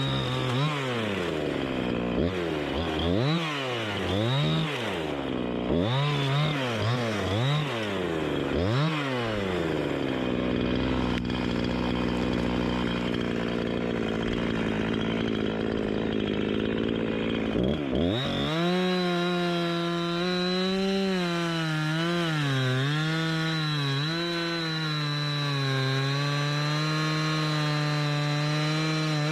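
Chainsaw blipped up and down repeatedly, then running steadily at a lower pitch. About two-thirds of the way in it is revved to full throttle, and the pitch dips and wavers as the chain cuts into the wood.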